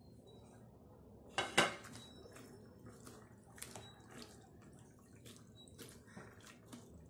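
Hands washing green chillies, garlic cloves and coriander in a plastic bowl of water: irregular small splashes and sloshing as the ingredients are stirred and rubbed. One louder splash or knock comes about a second and a half in.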